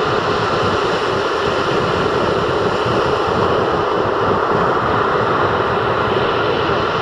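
Rough sea surf breaking and washing up a sandy beach in a steady, continuous rush of noise.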